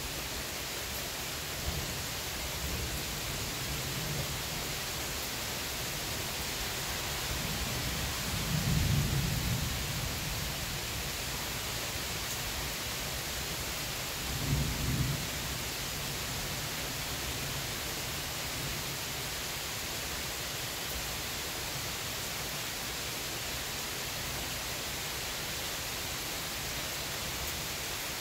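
Steady rain falling on trees, lawn and a wet driveway, an even hiss, with two brief low rumbles about eight and fifteen seconds in.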